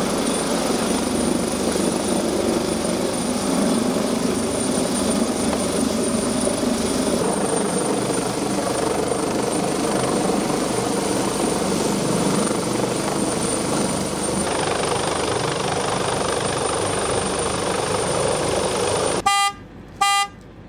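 Fire department rescue helicopter hovering low overhead: a steady rotor and turbine noise with a thin high whine over it. It cuts off near the end, and two short horn toots follow.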